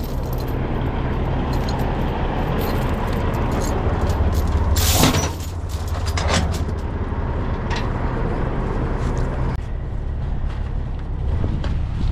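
Heavy tow truck's diesel engine idling steadily, with scattered metal clinks and one loud clank about five seconds in.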